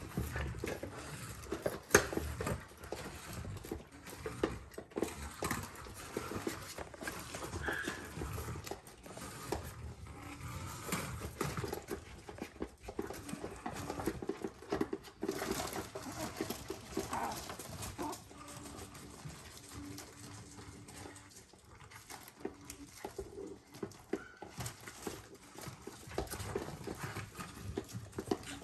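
Maltese puppies scrabbling and pawing about, with many small irregular clicks and taps from claws and the puzzle toy they work at, and a few brief puppy squeaks.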